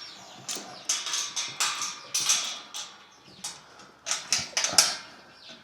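Livestock hooves clattering and shuffling on the barn floor: a quick, irregular run of sharp knocks and scrapes.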